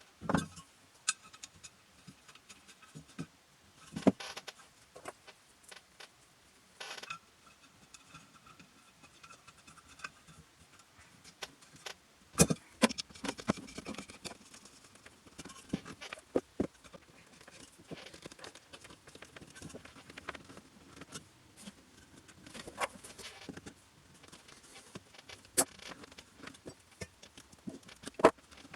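Hand work on small workshop parts: scattered light clicks, taps, rattles and scrapes, with a few louder knocks spread through. No motor is running.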